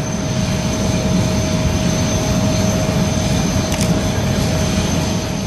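Antonov An-178's twin turbofan engines at takeoff thrust as the aircraft rotates off the runway: a steady jet roar with a low rumble and a steady high whine.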